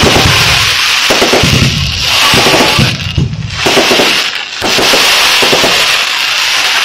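Aerial fireworks bursting: dense, loud crackling and rapid bangs of many shells and rising comets going off together, easing for a moment twice.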